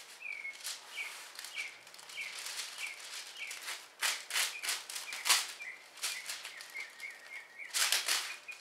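Waxed paper rustling and crackling as it is pulled from its box and torn off, loudest in bursts about four to five seconds in and again near the end. A bird chirps behind it, about two short falling chirps a second.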